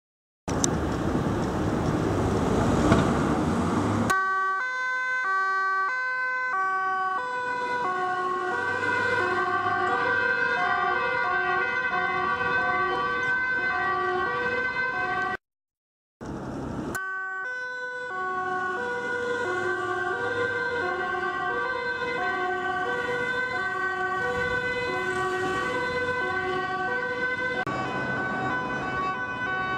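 Dutch emergency-vehicle two-tone sirens alternating between a high and a low pitch as police cars pass at speed. The first few seconds are loud road noise from a passing vehicle before the siren comes in, and the sound cuts out for about a second midway.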